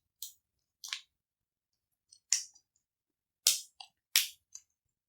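Stiff plastic blister packaging of a coin-cell battery crackling and clicking in about five short, sharp bursts as it is handled and opened.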